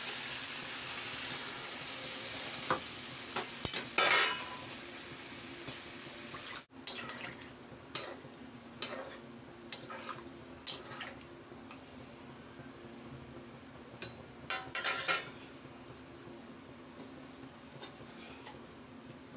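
A spoon stirring and scraping against a cooking pot in short strokes, over a steady hiss that stops abruptly about six and a half seconds in. After that come scattered clinks and scrapes, with a short cluster of them about fifteen seconds in.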